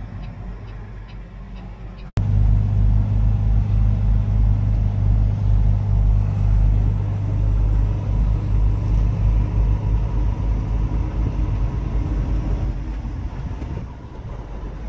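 Semi truck's diesel engine running, heard from inside the cab as it rolls slowly: a loud, steady low drone. It starts abruptly about two seconds in, after a quieter stretch of in-car driving noise with faint regular ticks.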